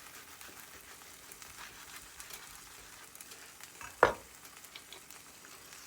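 Faint sizzling of a chicken quesadilla frying in a pan that is still hot after the burner has been turned off. There are light crackles throughout, and a single sharp knock about four seconds in.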